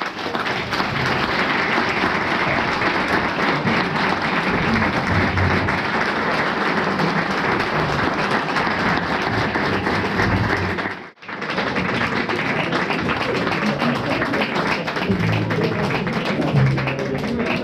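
Audience applauding, a dense steady clapping that cuts out sharply for a moment about eleven seconds in and then carries on.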